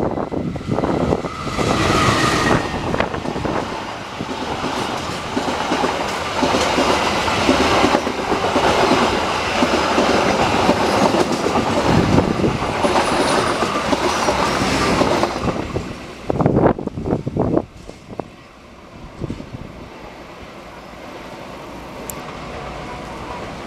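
KAI diesel locomotive hauling a passenger train passing close by: engine and wheels on the rails loud for about sixteen seconds, with the clickety-clack of wheels over rail joints. A few sharp clicks come near the end of the pass, then the sound drops suddenly to a quieter, steady rumble.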